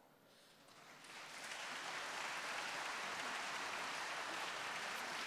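Audience applause, fading in over the first second or two and then holding steady.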